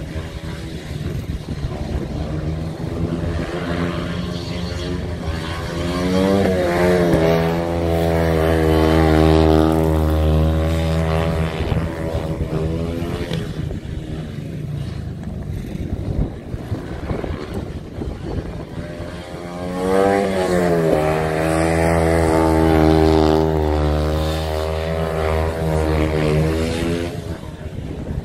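500cc dirt-track motorcycle lapping an oval: the engine rises in pitch as it accelerates out of a turn about six seconds in and again about twenty seconds in, runs loud and steady down each straight, then drops back and fades as the throttle is shut for the next corner.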